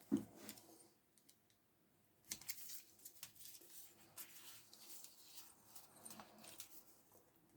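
Faint clicks and light scraping of metal parts being handled as the cylinder of a Stihl 020T chainsaw is worked down over the piston and its rings. A single knock comes right at the start.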